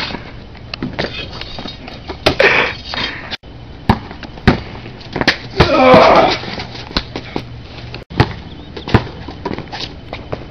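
A basketball bouncing on a concrete driveway: irregular sharp thumps, with a louder rough noise lasting about a second near the middle.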